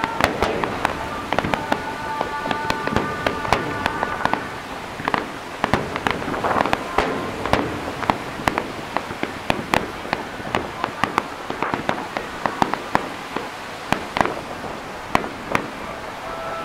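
Fireworks display finale: firework shells going off in quick succession, a dense run of sharp bangs and pops throughout, with a few held high tones about two to four seconds in.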